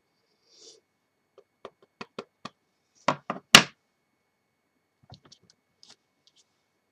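Clear acrylic stamp block tapped lightly on an ink pad about five times, then knocked down sharply three times a little over three seconds in, the last knock the loudest, as the inked stamp is pressed onto card; a few faint ticks follow near the end.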